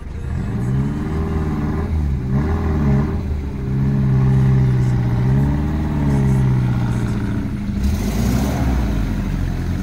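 Suzuki Jimny off-roader's engine revving up and down over rough ground, its pitch rising and falling several times, with a brief hiss near the end.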